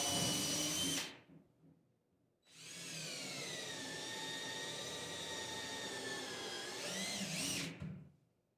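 Cordless drill boring pilot holes through wooden cabinet face frames: one short run that stops about a second in, then after a pause a longer run of about five seconds, its whine sagging under load and rising again just before it stops.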